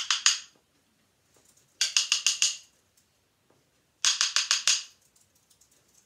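Two wooden sticks tapped together in quick rolls of about eight taps each, imitating a woodpecker pecking at a tree. One roll dies away in the first half-second, then two more come about two seconds apart.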